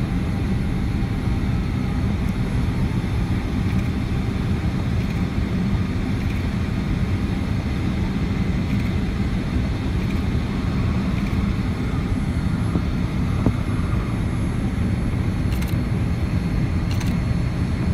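Steady low rumble of cabin noise inside a Boeing 787-9 on final approach: airflow and engine noise heard from a front window seat, holding level throughout.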